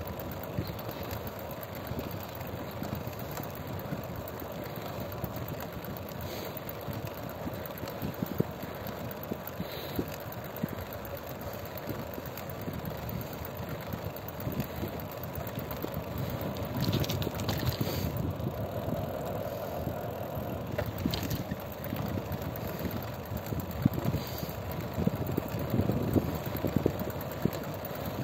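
A car on the road: steady engine and road noise, with wind buffeting the microphone.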